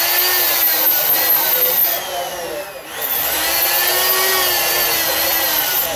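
Electric straight die grinder running at high speed, its burr grinding the inside of a small metal sleeve, the whine sagging and rising in pitch as it bites. About halfway through it eases off briefly, then speeds back up.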